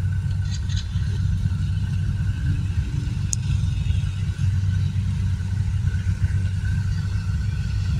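Kubota DC-70G Plus combine harvester's diesel engine running steadily, a low even rumble.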